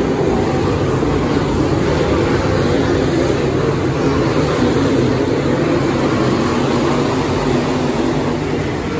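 A pack of dirt late model race cars racing around a dirt oval, their V8 engines blending into one loud, steady roar.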